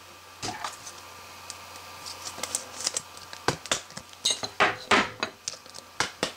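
A trading card being slid into a plastic sleeve and hard plastic card holder: irregular light clicks and scrapes of card and plastic, thickening in the second half.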